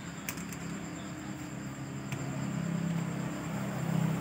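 Spinning fishing reel cranked by hand: a low steady whir from the gears and rotor that grows louder toward the end, with a few light clicks in the first two seconds.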